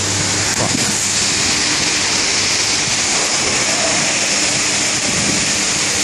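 Heavy tropical rain pouring down in a storm with strong wind, a dense steady hiss.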